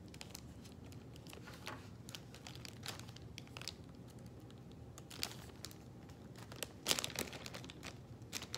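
Clear plastic packaging crinkling and crackling in the hands as secondary IV tubing is unwrapped from it, in scattered small crackles with a louder flurry about seven seconds in.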